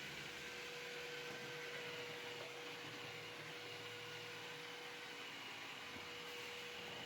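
iRobot Roomba 692 robot vacuum running its cleaning cycle: a steady whirr of the vacuum motor and brushes with a constant hum.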